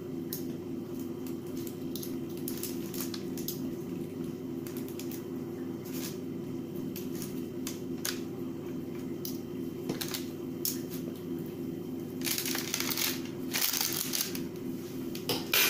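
Knife and fork clicking and scraping on soft roasted eggplants on a parchment-lined baking tray as each eggplant is slit lengthwise; near the end come longer squishy, rustling sounds as the cut is pulled open. A steady low appliance hum runs underneath.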